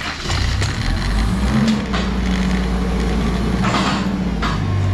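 Forklift engine running steadily, rising slightly in pitch about a second and a half in. A brief hiss comes about four seconds in.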